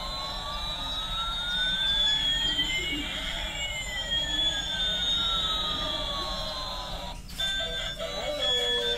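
Electronic sound effect from a battery-powered toy airliner's built-in speaker: two siren-like synthesized tones sweep over about seven seconds, one rising while the other falls, crossing midway, then cut off suddenly. A short beeping melody starts near the end.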